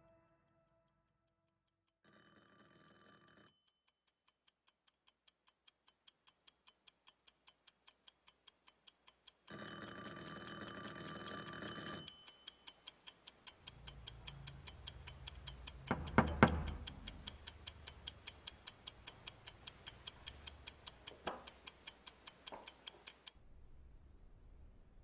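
A clock ticking steadily, about two or three ticks a second, growing louder over the first few seconds and stopping near the end. Two short bursts of noise break in early and about ten seconds in, and a low rumble with a heavy thud comes about sixteen seconds in.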